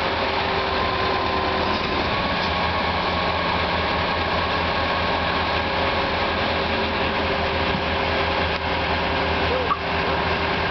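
Diesel engine of an MSHU-4 tie renewal machine running steadily, with a steady higher-pitched whine over its low note.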